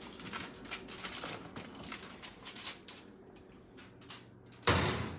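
Aluminum foil crinkling in small crackles as a foil-covered baking dish is handled, then a loud scraping clatter near the end as the dish goes onto the oven rack.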